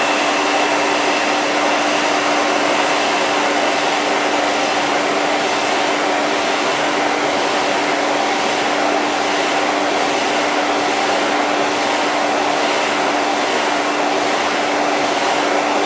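Handheld hair dryer blowing steadily with a constant hum, heating a phone's thin glued plastic panel to soften the adhesive.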